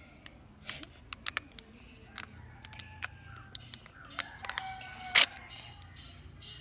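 Crinkling and tearing of a Kinder Joy egg's foil wrapper being peeled off by hand: scattered sharp crackles, the loudest a tear about five seconds in.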